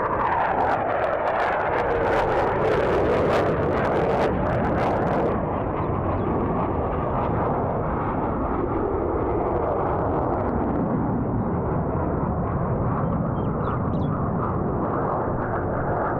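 Four Blue Angels F/A-18 Hornet jets flying past overhead in formation: a loud, steady jet roar whose pitch falls over the first few seconds, with sharp crackling during the first five seconds.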